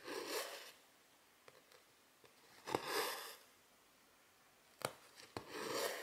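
Silk embroidery thread drawn through cross-stitch fabric with a soft rasping swish, three pulls about two and a half seconds apart. Short sharp ticks of the needle going through the fabric come between the pulls.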